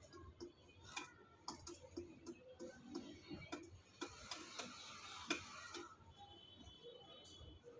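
Pigeon pecking rice from a metal bowl: quick, irregular clicks of the beak on the grain and the bowl, several a second, stopping about six seconds in.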